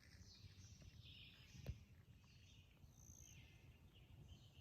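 Near silence outdoors, with faint, scattered chirping in the background and one soft click about a second and a half in.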